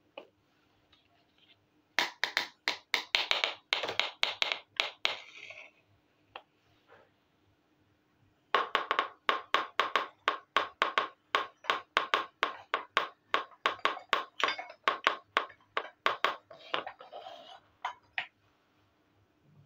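Small plastic toy kitchen pieces tapped and clicked rapidly, about five quick taps a second. There are two runs: a short one about two seconds in, and a longer one starting a little past the middle.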